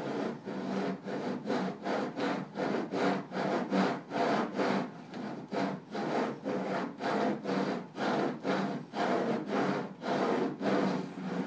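A bundle of 480 bound pens rubbing back and forth across paper in steady, even strokes, about two and a half a second.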